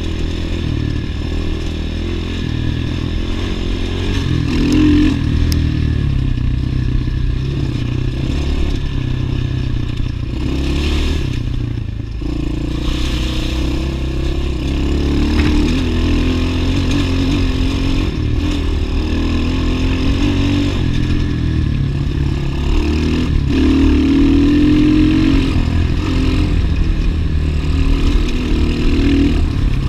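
A 2011 Gio X31 250cc dirt bike's single-cylinder four-stroke engine running while the bike is ridden along a rough trail, its pitch rising and falling as the throttle opens and closes. Knocks and rattles come from the bike going over stones.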